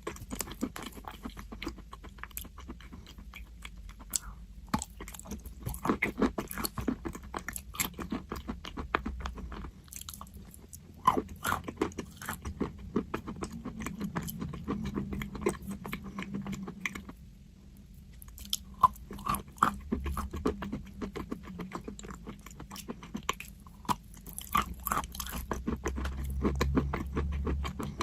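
Crunchy chalk being bitten and chewed: dense crackling crunches that go on with a few short pauses.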